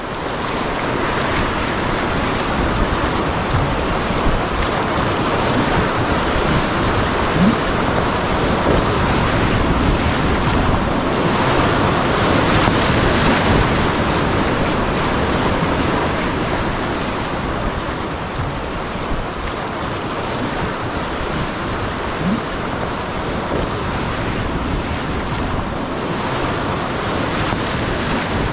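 Steady rushing noise with no tones or rhythm in it, swelling a little in loudness around the middle and easing off later.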